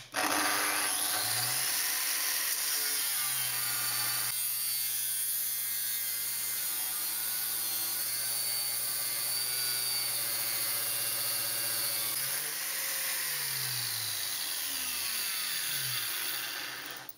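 Angle grinder on a chop-saw stand starting up and cutting through square steel tube with an abrasive cut-off disc, a steady high grinding hiss over the motor's whine. The motor's pitch dips and recovers about twelve seconds in, then falls away near the end as it slows.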